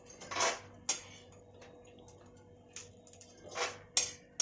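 Metal spatula stirring edible gum (gond) roasting in ghee in a kadhai: two scraping strokes, each followed by a sharp tap of the spatula against the pan.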